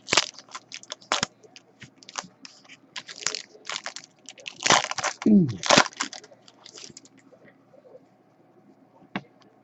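Trading cards and pack wrapper being handled: scattered crinkles and light clicks that thin out near the end.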